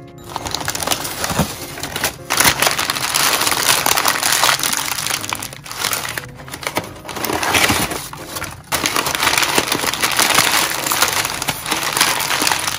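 Sheets of white packing paper being crumpled and pulled out of a cardboard box: loud continuous rustling and crinkling, broken by a few short pauses.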